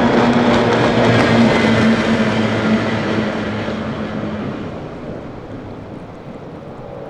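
Kyotei racing boats' two-stroke outboard engines running past at speed, loud at first and fading away over a few seconds, then beginning to swell again near the end.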